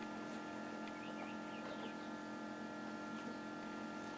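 Steady electrical hum made of several held tones over faint hiss, with a few faint short falling chirps above it.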